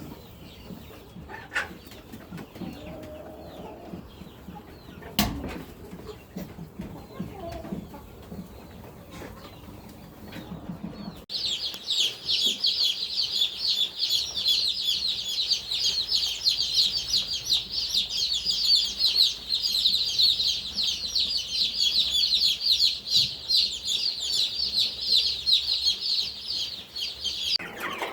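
A large flock of chicks peeping in a dense, continuous high-pitched chorus, starting suddenly about eleven seconds in. Before that, fainter chicken calls and scattered knocks.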